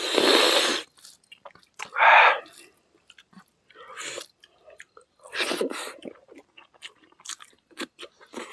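Close-miked eating sounds of people eating rice and curry with their hands: chewing, lip-smacking and small clicks, with three louder noisy mouth sounds, the loudest right at the start, one about two seconds in and one just past the middle.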